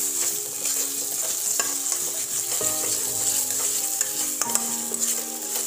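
Thick ground onion-and-tomato masala paste sizzling in ghee in a kadai, with a spatula stirring and scraping it across the pan. This is the paste being fried down until it dries and the ghee separates. Under it run a few steady tones that shift every second or two.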